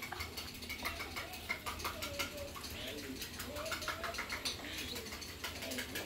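Quick, irregular light clicks and taps of baby cockatiels' claws on a laminate floor, with a faint wavering voice-like tone underneath.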